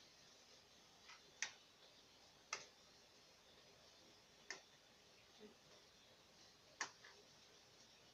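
Metal fork clinking against a ceramic plate of food: four sharp clinks at uneven intervals, with a few fainter ones, over near-silent room tone.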